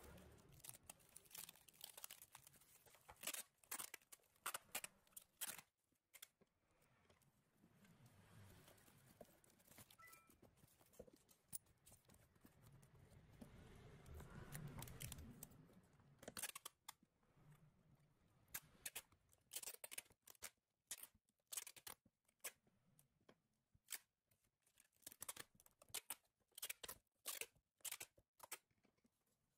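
Faint scattered clicks and taps of small objects being handled, with a soft rustling stretch in the middle.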